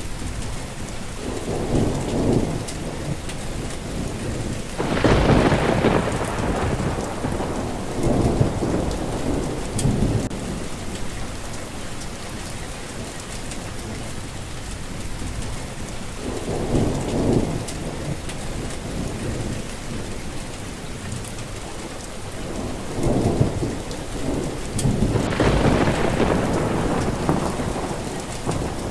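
Steady rain with thunder rolling in again and again, about six low rumbles that swell and fade; the loudest come about five seconds in and near the end.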